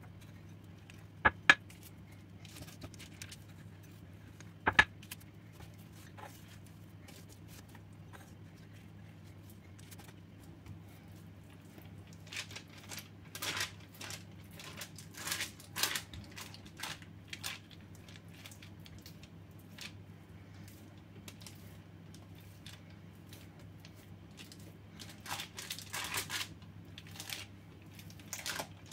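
Hands pressing and stretching oiled bread dough flat on baking paper: rustles of the paper and soft slaps of fingers in the dough, in two spells. A few sharp knocks near the start, over a steady low hum.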